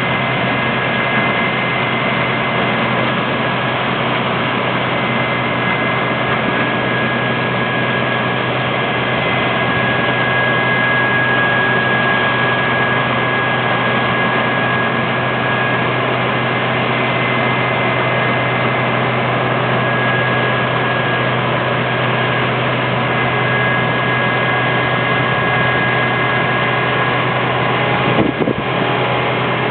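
Combine harvester running steadily while harvesting a cereal crop: a constant mechanical drone with a thin, steady high whine running through it. A brief crackle comes near the end.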